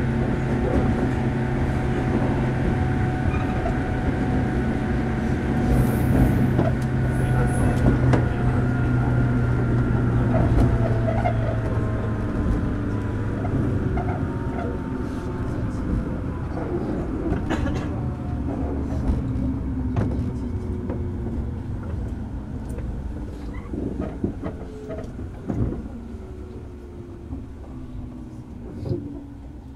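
Running sound inside a JR Kyushu 103 series 1500-subseries motor car as the train slows: its traction motor and gear whine falls steadily in pitch and fades. A low hum cuts out about halfway through, and wheel knocks over the rail come in the second half.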